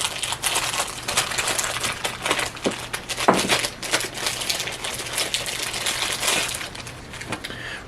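Packaging crinkling and rustling in irregular crackles as the USB cable and adapters are unwrapped and taken out of it.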